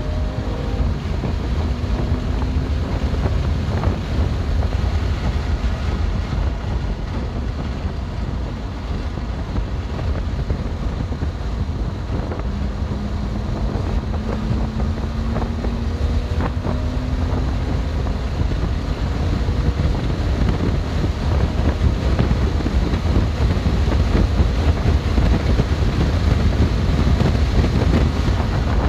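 Wind buffeting on the microphone and road roar from a 2020 BMW M2 Competition at track speed, with the car's twin-turbo straight-six faintly audible underneath and rising in pitch under acceleration at times.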